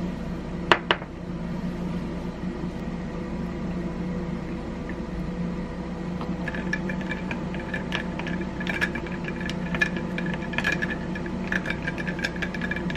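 Ice cubes clinking against a drinking glass as an iced oat-milk coffee is stirred with a wooden stirrer, many quick ringing taps from about six seconds in. Under it a steady appliance hum runs throughout, and two sharp knocks come about a second in.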